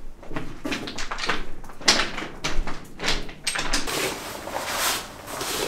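Irregular rustling and scuffing of handling, jacket fabric and gear being worked by hand, with a few sharper knocks.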